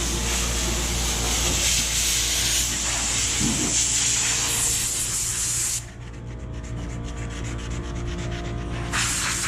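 Steady hiss of an air tool at work, sanding or spraying, that stops about six seconds in and starts again near the end, over a steady low machine hum.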